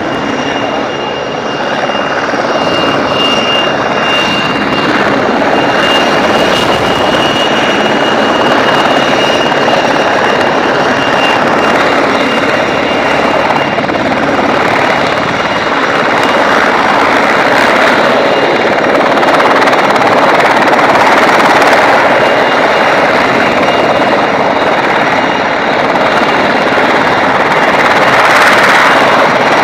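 A helicopter's rotor and turbine engine running loudly as it hovers low over the slope below. A high steady whine sounds over the noise for roughly the first twelve seconds, then fades.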